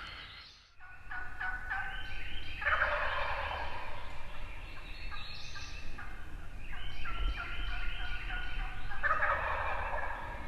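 Wild turkey gobblers gobbling, several gobbles in quick succession, some overlapping one another.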